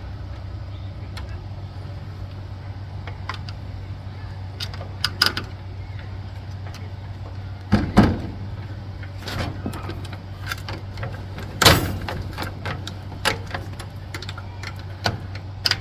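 Scattered metal clicks and taps from hand tools working the snap ring and gear on a lawn tractor's steering shaft, with two louder knocks about halfway through and again a few seconds later, over a steady low hum.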